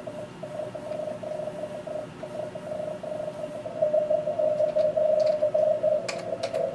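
Morse code (CW) signals heard from an Elecraft K3 amateur radio transceiver during a contest. A single tone is keyed on and off in rapid dits and dahs over band hiss, and a louder station comes in about four seconds in. A few sharp clicks sound near the end.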